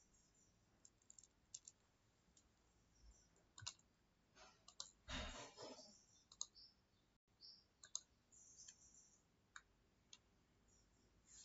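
Faint, scattered computer mouse clicks, with a short rustle about five seconds in.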